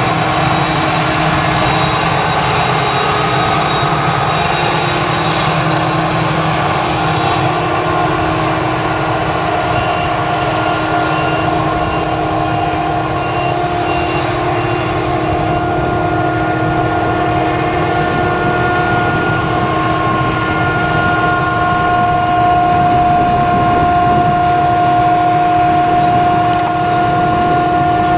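Claas Jaguar 970 forage harvester chopping sorghum under load, its V8 engine and chopping gear making a steady drone with high, steady whining tones, together with the tractor hauling the silage trailer alongside. The whine grows stronger in the second half.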